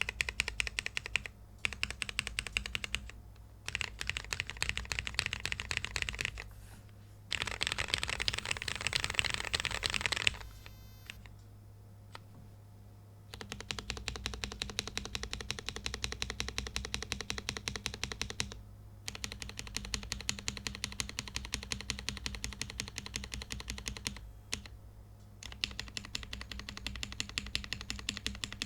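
Typing on a Womier/Gamakay K87 mechanical keyboard with lubed and filmed Cherry MX Black Hyperglide linear switches and POM keycaps: steady runs of fast keystrokes with short breaks between them. A louder, denser flurry of keystrokes comes about a third of the way in, then a pause of about three seconds before the typing resumes.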